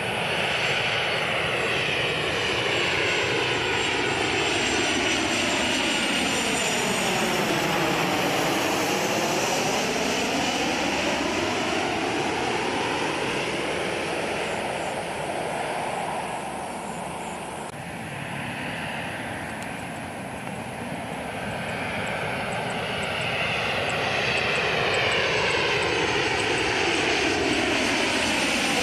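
Jet engines of Boeing 737 airliners (CFM56-7B turbofans) on final approach, passing low overhead with a loud, steady rush whose tone sweeps down and back up as the jet goes over. The sound fades a little past the middle as one jet moves away, then swells again as the next comes in overhead.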